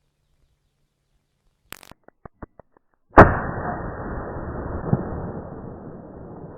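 A few small clicks of gun handling, then a single rifle shot about three seconds in, followed by a long rumbling decay that fades over several seconds.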